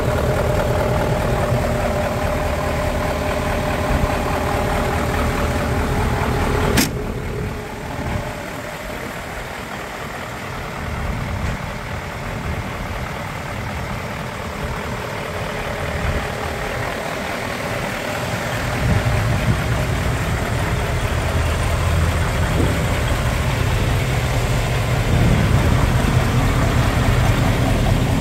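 Mercedes-Benz SK tractor unit's V8 diesel engine idling steadily. There is a sharp click about seven seconds in, and the low drone grows stronger in the second half.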